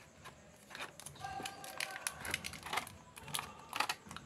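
Clear plastic blister packaging crinkling and clicking in the hands as a small flower lamp is worked out of its tray, with faint steady background music under it.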